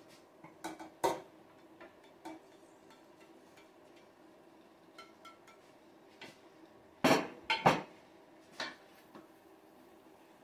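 Kitchenware clatter: beef pieces tipped from a plate into a stainless steel pot and stirred in with a wooden spoon, with scattered light knocks and a few louder clatters a little after seven seconds in.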